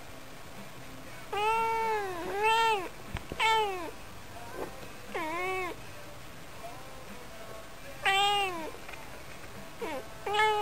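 Calico cat meowing in a chatty, talk-like run: three meows close together, then single meows a few seconds apart, about seven in all, each rising and then falling in pitch.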